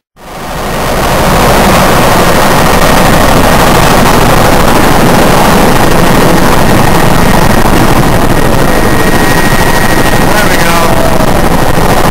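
Helicopter rotor and turbine noise heard from inside the cabin while taking off and climbing away: loud and steady, with a thin high whine, fading in over the first second.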